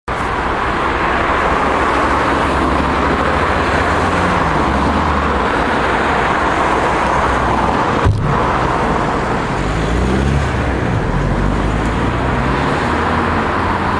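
Car being driven: steady tyre and road noise with the engine hum underneath, its pitch rising and falling with speed. One sharp click about eight seconds in.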